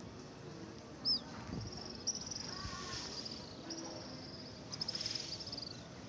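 Small birds flying overhead giving high-pitched, rapid trilling calls. A short sharp chirp comes about a second in, then several trills follow one after another, the last falling in pitch near the end.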